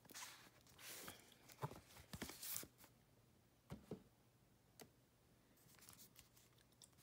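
Faint rustling, sliding and light taps of paperback manga volumes being handled, as the first book is drawn out of its box-set slipcase. The handling is busiest in the first few seconds, then gives way to a few isolated soft ticks.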